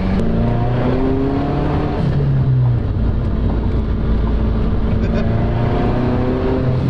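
Mazdaspeed 3's turbocharged 2.3-litre four-cylinder, fitted with an XS Power turbo manifold, heard from inside the cabin under way. The engine note climbs, falls about two seconds in, holds, then climbs again near the end.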